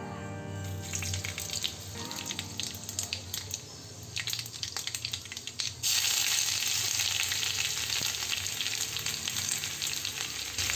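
Cumin seeds, red chilli and grated ginger frying in hot oil in a wok-shaped kadai: first scattered crackling and popping. About six seconds in it turns suddenly into a louder, steady sizzle.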